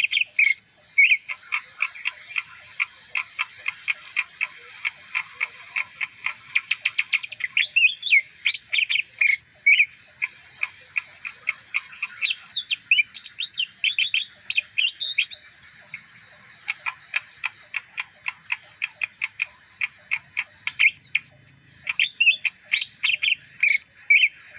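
A leafbird singing a long, continuous song of rapid, varied chirps, whistles and trills, with hardly a pause.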